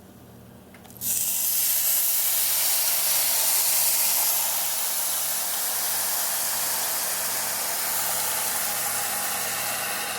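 A hot pan sizzles and hisses loudly with steam as liquid is poured in. It starts suddenly about a second in and eases off a little after a few seconds.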